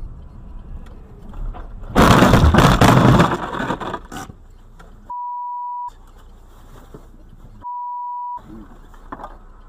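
A loud crash about two seconds in, lasting around a second and fading over the next two, as a semi-truck sliding on the snowy road strikes the dashcam car and throws snow and slush over its windshield. Later come two steady censor beeps, each under a second, a couple of seconds apart.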